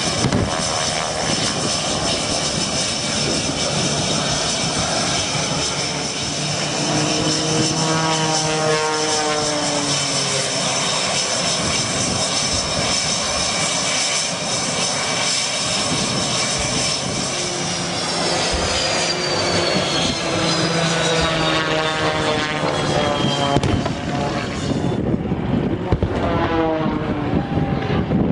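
Propeller-driven aerobatic plane making low passes, its engine note falling in pitch as it goes by, about three times, over a steady high-pitched whine that cuts off near the end.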